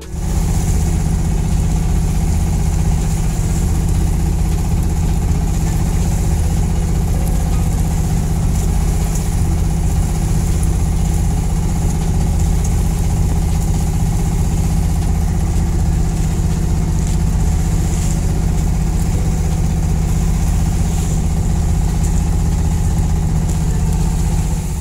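Fishing boat's engine running steadily while the boat cruises, a constant low hum with an even hiss over it.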